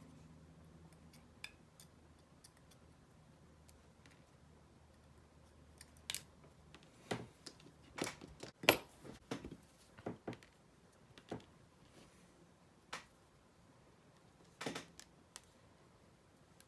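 Scattered light clicks and taps of small metal regulator parts and hand tools being handled on a workbench, about a dozen in all, the loudest about six and nine seconds in.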